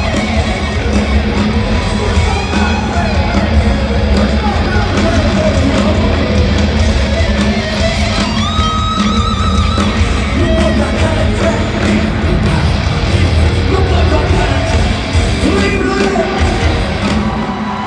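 Glam metal band playing live: distorted electric guitars, drums and a shouted rock vocal, with a held lead note about halfway through.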